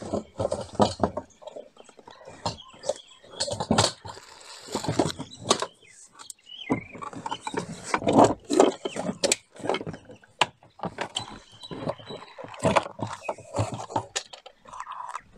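Irregular clicks, knocks and plastic rattles of a Mercedes W203 fuel pump module being worked loose and lifted out of the fuel tank by hand.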